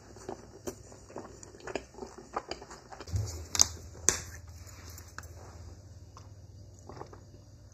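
Close-miked wet chewing and mouth clicks of someone eating a fried egg roll. About halfway through come two sharp plastic clicks as a plastic water bottle is handled, followed by quieter drinking from it.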